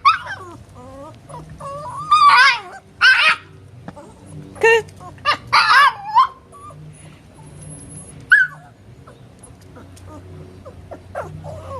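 Kai Ken dog whining and yipping: a string of short, high calls that bend up and down in pitch, about half a dozen of them loud, with fainter whines in between.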